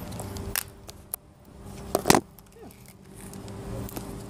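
Handling noise from a phone being moved about while its earphone cable is untangled: scattered clicks and rubbing, with a sharp knock about two seconds in.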